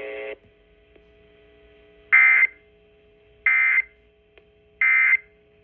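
Emergency Alert System end-of-message signal: three short, identical bursts of digital data tones about a second apart. Just before the first burst, a steady buzzing tone cuts off.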